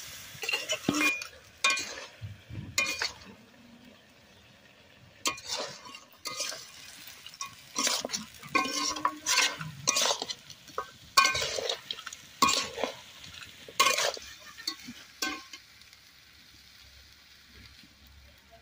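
A metal spatula scraping and turning chunks of pig-head meat in a large metal wok, in irregular strokes with frying sizzle underneath; the meat is being dry-fried before the curry is finished. The strokes stop about three-quarters of the way through.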